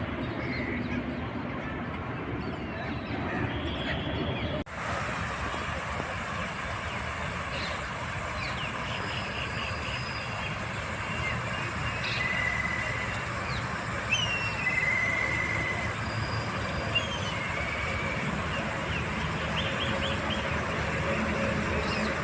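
Small birds calling, short whistled notes and quick chirps, scattered through the second part over a steady background rumble.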